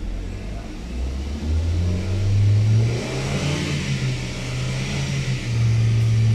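2015 Hyundai Accent's engine, heard from inside the cabin, being revved with the A/C running: its pitch climbs about a second and a half in, holds higher, and climbs again near the end. The engine is held at raised revs to get the A/C compressor circulating refrigerant for a pressure-gauge reading after a condenser leak repair. A steady hiss joins about three seconds in.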